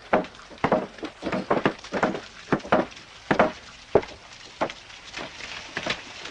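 Irregular wooden knocks and thuds, a few a second, from a pair of draft horses hauling timber over wooden planks laid on mud: hooves and logs striking the boards.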